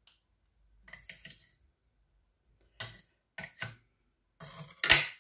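Kitchen utensils clinking and knocking against a dish: about six separate knocks and clinks, the loudest near the end.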